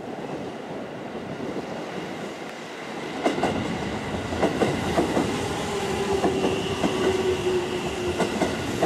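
Wheels of a towed Tobu 60000 series electric train rolling slowly over rail joints and points as the consist pulls away, with clicks and clacks starting about three seconds in. A steady squeal from the wheels on the curve joins them in the second half, over wind on the microphone.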